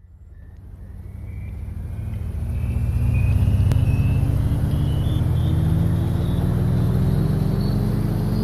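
Small FPV quadcopter's brushless motors and three-inch props whirring steadily in flight, with a heavy low hum and a high thin whine. The sound swells up over the first few seconds and creeps slowly higher in pitch.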